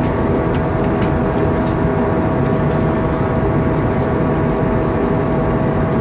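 Airbus A320 passenger cabin in flight: a steady roar of engine and airflow noise with a constant hum.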